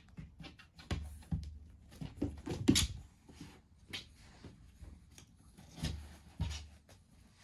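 A cat scuffling with a toy on a fabric play mat: irregular thumps, rustling and scratching, with the loudest flurry about three seconds in and two more thumps near the end.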